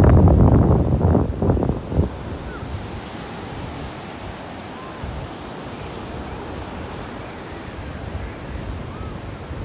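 Wind buffeting the microphone for the first two seconds, then the steady hiss and wash of surf breaking on a sandy beach.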